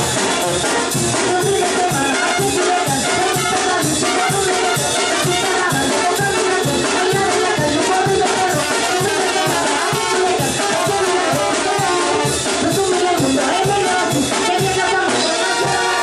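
Mexican brass banda playing live: trumpets and sousaphone over congas, snare and bass drum, with a quick, steady beat.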